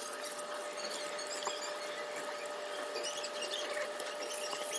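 Faint scratching and small clicks of metal espresso group-head parts being scraped and cleaned of old coffee oil by hand, over a steady faint hum.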